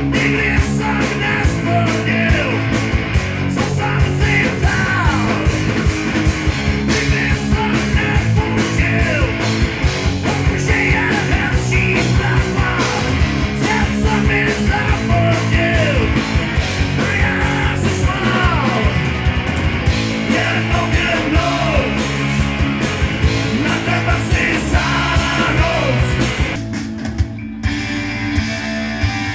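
Rock song with a heavy drum beat, guitar and a singing voice. About 27 seconds in it drops to a quieter, sparser section.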